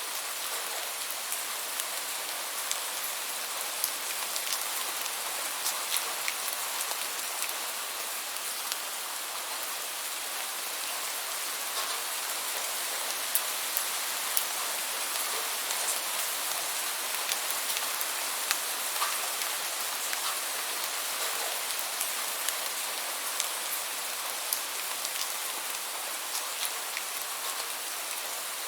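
Steady rainfall: an even hiss of rain with many distinct drops ticking on a surface.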